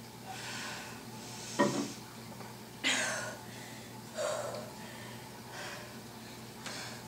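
A woman breathing hard, out of breath from intense interval exercise: about six loud breaths, roughly one every second and a quarter, with a sharp knock about a second and a half in.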